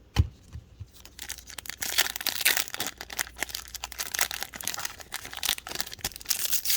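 A single low thump, then the foil wrapper of a trading-card pack crinkling and tearing open in a dense crackle.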